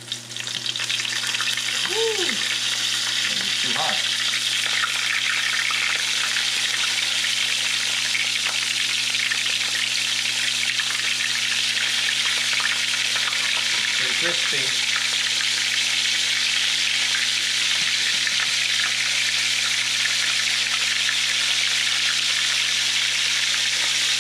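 Battered razor clam strips frying in hot oil in a cast iron skillet: a steady, dense sizzle and crackle that swells up sharply within the first second as pieces go into the pan.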